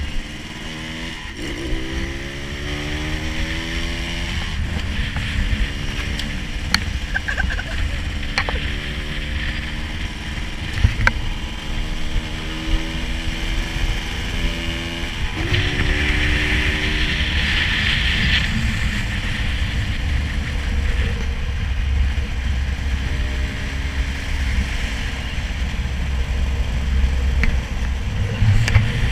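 Small motorcycle or scooter engine running and pulling away, its pitch climbing a few times as it picks up speed. Steady wind and road rumble on the microphone run underneath.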